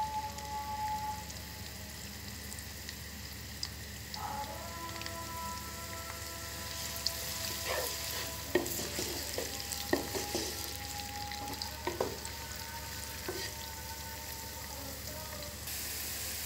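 Chopped onions sizzling in hot ghee in a karahi, with a wooden spatula scraping and knocking against the pan as they are stirred, the knocks bunched in the middle of the stretch.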